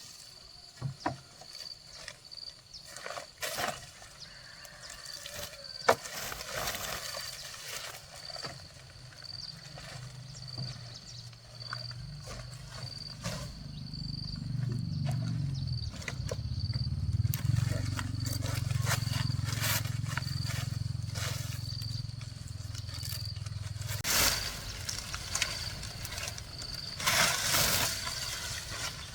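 A high insect chirp repeating evenly about once a second, with scattered knocks and scrapes. A low steady hum comes in about twelve seconds in and stops suddenly about twelve seconds later.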